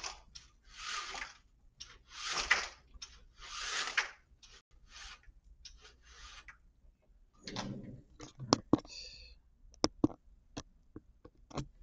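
Handling noises while a light over a document camera is adjusted: three soft rushing bursts in the first few seconds, then a run of sharp clicks and knocks from about eight seconds in.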